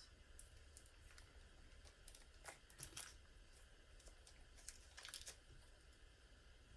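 Faint crinkling of a small clear plastic zip-lock bag being handled and opened by hand, with a few brief crackles around three and five seconds in over quiet room tone.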